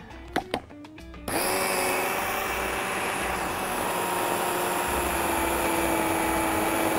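Electric mini food chopper switched on about a second in, its motor running steadily with a whine that drifts slightly lower as it beats a thick chocolate frosting. A couple of clicks come just before it starts.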